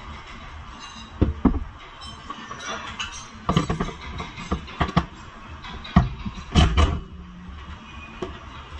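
Irregular metallic clanks and knocks of a hand tool on a car's front strut top mount and its nuts, over low workshop background noise.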